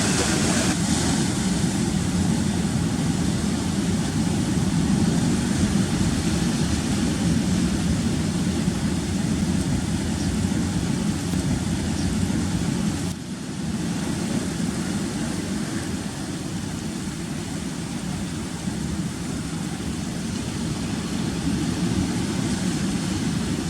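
Steady roar of rough sea surf, with wind buffeting the microphone.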